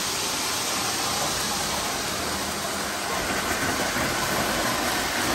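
O gauge model trains running around the layout track, giving a steady rolling rumble and hiss of wheels on the rails.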